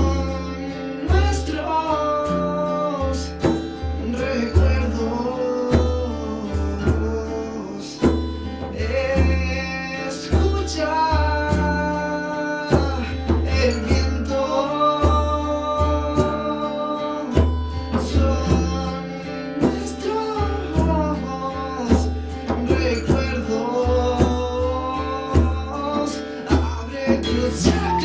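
Live song: a voice sings a held, gliding melody over strummed guitar, with steady low bass notes and regular percussive hits keeping the beat.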